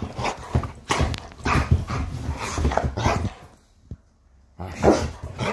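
A dog barking, the loudest bark near the end, with clothing rustling against the phone's microphone in the first few seconds.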